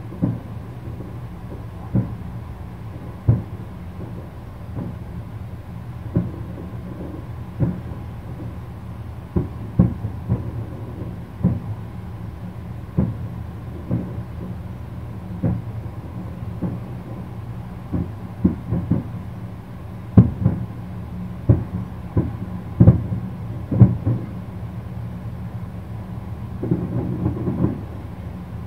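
Distant aerial firework shells bursting: a string of dull booms at irregular intervals, roughly one or two a second, loudest from about two-thirds of the way through, over a steady low background rumble.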